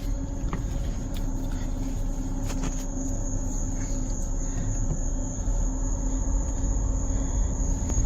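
Crickets trilling, one steady high continuous note, over the low rumble of a truck engine running.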